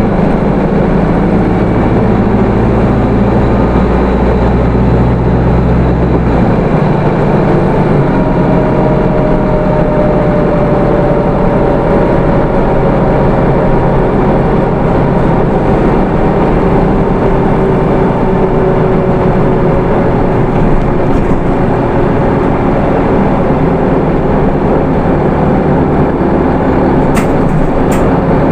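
Hino Rainbow II bus heard from inside while underway: its four-cylinder 4HK1 diesel and road noise. The low engine rumble changes about six seconds in. A drivetrain whine slowly falls in pitch through the middle. Two short clicks come near the end.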